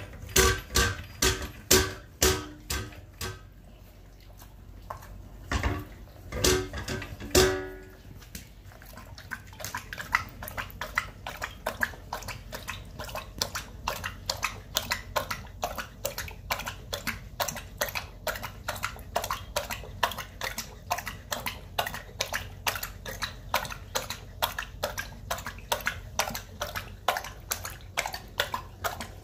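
Chocolate Labrador's stainless steel bowl clanking and ringing against its raised stand as she licks it, with several loud clanks in the first eight seconds. Then the dog lapping water from a stainless steel bowl in quick, even laps.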